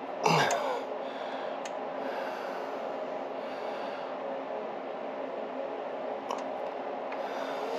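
A couple of light clicks as small engine parts are handled and fitted by hand, over a steady background hum. Just after the start comes a brief, louder noise that falls in pitch.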